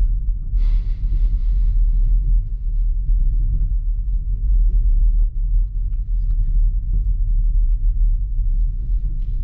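Steady low rumble inside the cabin of a BMW X3 M Competition crawling over a rough, potholed dirt track, the car shaking over the bumps. A brief hiss rises over it from about half a second to two seconds in.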